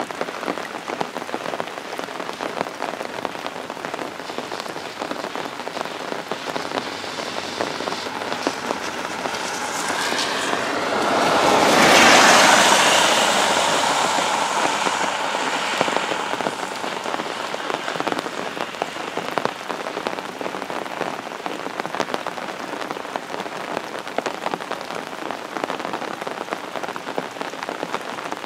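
Heavy downpour falling steadily. A loud hissing swell builds about a third of the way in, peaks near the middle and fades over a few seconds.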